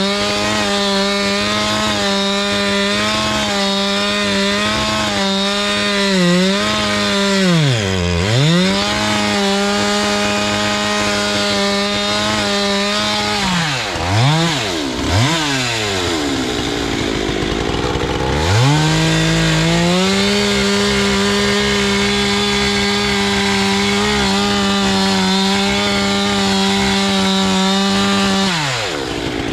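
Husqvarna 390XP two-stroke chainsaw with a 3-foot bar running at full throttle in a cut through a green willow trunk. Its pitch sags under load a couple of times, drops off twice and runs low for a few seconds, then revs back up and holds until it falls off near the end. The owner suspects the wet willow keeps the saw from clearing chips from the middle of the cut.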